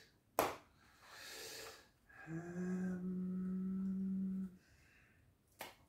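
A man inhales through his nose, then hums one long, steady, closed-lip 'hmmm' at a low pitch, a doubtful, mock-pondering sound. It is framed by a sharp click shortly after the start and another near the end.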